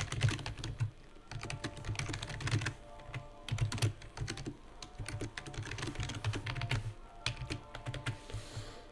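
Typing on a computer keyboard: quick runs of keystrokes with a few short pauses.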